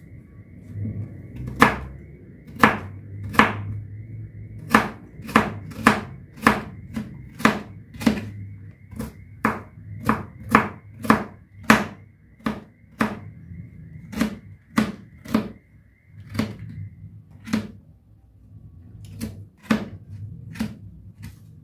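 Kitchen knife dicing carrot on a plastic cutting board: sharp knocks of the blade striking the board, a little under two a second, thinning out briefly near the end.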